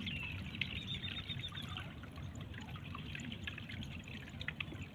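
Faint water trickling and dripping, with a few small ticks.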